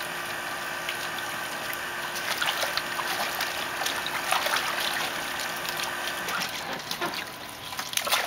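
Water jetting from the trunk fountain of a hose-fed elephant kiddie pool, a steady hiss, with scattered splashes as a child and a puppy wade through the shallow water.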